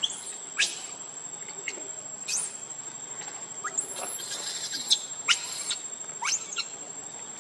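A young macaque's short, high-pitched squeals, about nine of them, most sweeping sharply up in pitch, with a longer squeal around the middle. Under them runs a steady high insect drone.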